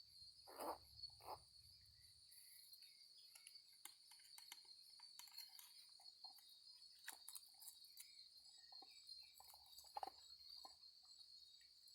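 Insects, crickets by the sound, chirring steadily in a continuous high drone, with scattered small clicks and soft taps close by.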